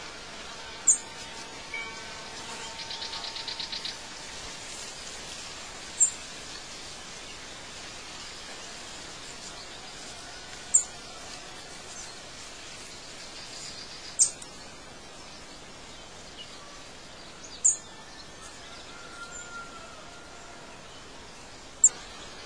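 Birdsong ambience: a short, sharp high chirp repeats six times, roughly every four seconds, with softer whistled notes and a brief rapid trill about three seconds in, over a steady background hiss.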